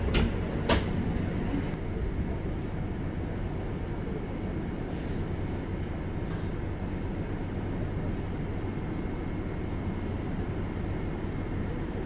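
Steady low hum inside a Toei 5300 series commuter car standing at a platform, with two sharp clicks in the first second.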